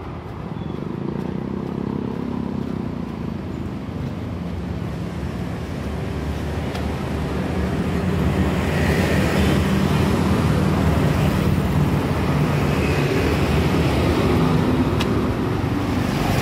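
Motorcycle and car engines approaching, their low rumble growing louder over the second half.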